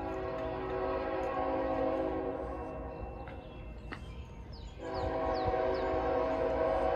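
CN diesel locomotive's air horn, not yet in sight: one long blast, a pause of about a second, then a second long blast, the opening of the grade-crossing signal. A few faint bird chirps in the gap.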